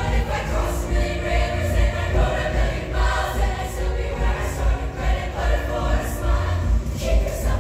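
Show choir singing in harmony over a live band, with a steady drum beat and bass under the voices.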